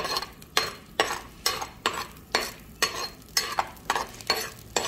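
Steel ladle stirring small onions and garlic frying in hot oil in a clay pot. It strikes and scrapes the pot about two to three times a second, over a sizzle from the oil.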